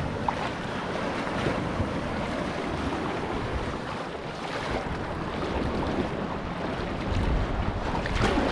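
Wind buffeting the microphone over the steady wash of sea water, with low rumbles that come and go.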